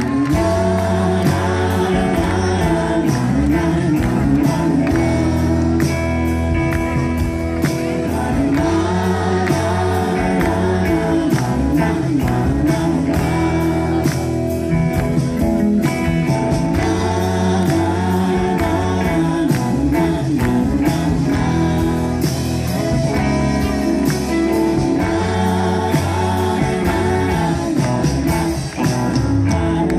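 Live rock band playing: electric guitars over bass with a steady beat.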